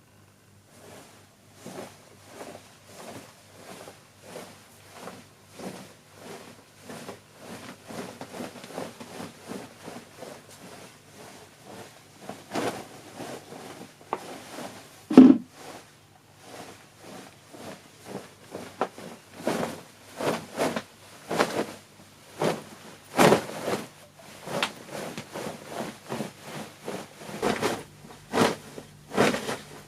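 Foley cloth rustle: fabric swished and rubbed in quick repeated strokes, about two a second, faint at first and louder from about halfway through, with a few sharper swishes standing out.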